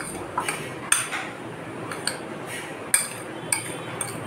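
Metal spoon stirring a moist chopped pickle in a bowl, with soft squelching and a sharp clink against the bowl's side every half second or so.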